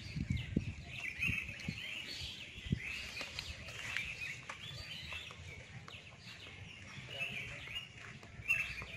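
Small birds chirping over and over, with a few low thuds in the first few seconds.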